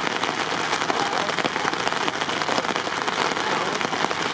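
Steady patter of rain, with faint voices in the background.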